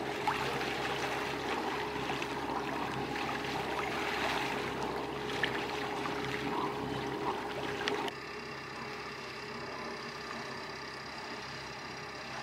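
A sailboat under way on its engine, with water rushing along the hull over a steady hum. About eight seconds in, the sound drops abruptly to a quieter, even hum.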